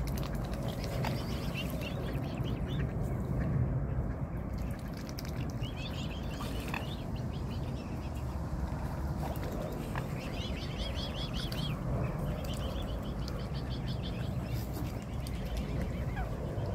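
Mute swan cygnets and swans calling at close range. There are several bursts of short, high, quickly repeated peeping calls over a steady low rumble.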